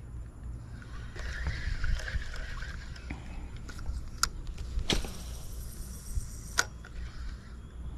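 Wind rumbling on the microphone while a spinning reel and line are worked: a sharp click about four seconds in, then a hissing whir for about a second and a half that ends in another sharp click.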